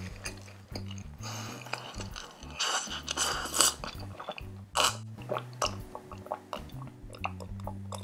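Close-miked chewing of a mouthful of sandwich, then drinking and gulping milk from a glass, over background music with a low bass line.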